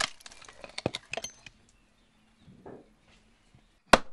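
A log being split by hand for wooden shingles: scattered small cracks and ticks as the wood parts, then near the end a single sharp knock of a wooden mallet striking the back of a froe blade.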